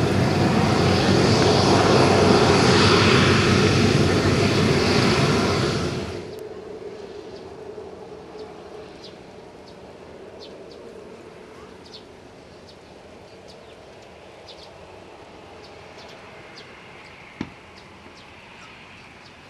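Boeing 737-500's CFM56 turbofan engines running at taxi power, loud and close, cut off abruptly about six seconds in. After that the same jet is heard much fainter and steady, with scattered light ticks and a single sharp click near the end.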